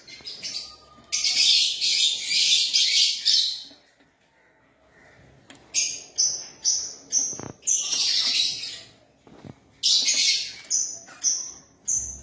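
Fischer's lovebird calling in high-pitched chattering bursts: one long run near the start, a short pause, then quick short chirps in series broken by a couple of longer bursts.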